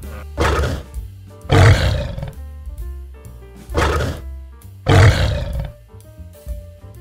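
An animal giving four harsh, noisy calls in two pairs, over background music.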